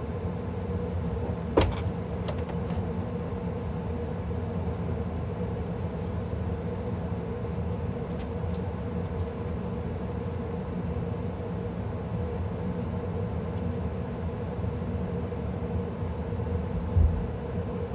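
Carrier gas furnace running: a steady hum and rush of air with a held tone, broken by a sharp click about a second and a half in and a short thump near the end.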